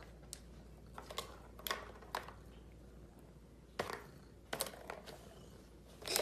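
Light plastic clicks and taps at irregular intervals, about ten in all: small plastic balls knocking around the tracks of a tiered ball-track cat toy as a cat bats at them.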